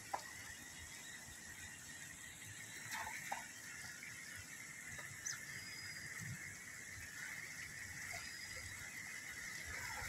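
Quiet outdoor ambience: a steady high-pitched hum with a few short chirps and clicks, near the start, about three seconds in, and once or twice later.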